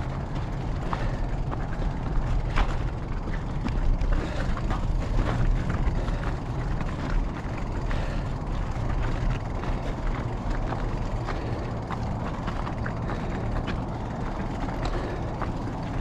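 Specialized Epic Evo Expert mountain bike climbing a rocky gravel trail: a steady low rumble of tyres over loose stones, with frequent small clicks and rattles from the bike.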